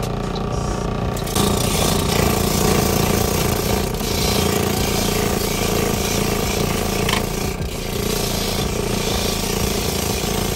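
Coconut half rubbed fast against a ridged metal hand grater: a rapid, continuous rasping scrape of the meat being shredded, starting about a second in.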